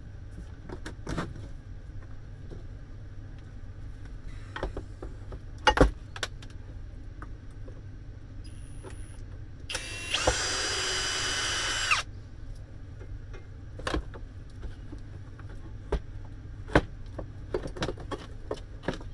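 A power drill runs steadily for about two seconds around the middle. Scattered sharp knocks and clinks of metal parts and tools come before and after it, the loudest about six seconds in.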